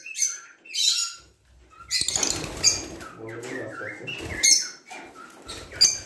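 Lovebirds calling, many short, high, shrill chirps and squawks overlapping, with a brief noisy rustle about two seconds in.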